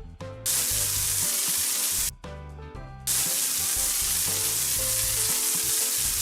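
Water-spray sound effect from a cartoon car-wash game, in two long steady spurts, the first about a second and a half long and the second about three seconds, over light background music.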